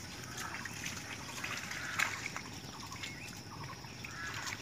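Small splashes and squelches of hands and feet working in shallow muddy water, with a sharper splash about two seconds in.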